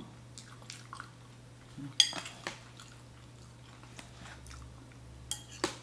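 A person chewing and eating with a fork, with mouth sounds and a few sharp clicks: the loudest about two seconds in and a couple more near the end.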